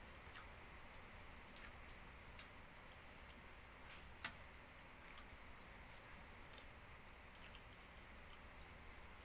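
Faint scattered clicks of chewing, with a sharper crackle of aluminium foil twice about four seconds in as a hand tears meat from a foil-wrapped roast chicken.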